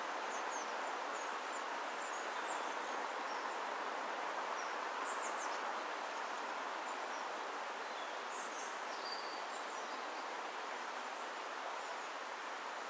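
Steady outdoor background hiss with faint, scattered high bird chirps.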